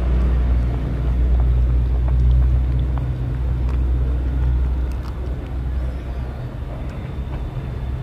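Pot of sour cabbage and fish soup at a rolling boil, over a steady low rumble, with a few faint clicks.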